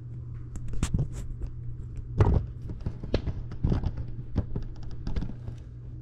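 Handling noise: irregular clicks, taps and knocks as a camera is moved and wires and small parts are handled on a wooden desk, with one heavier thump about two seconds in, over a steady low hum.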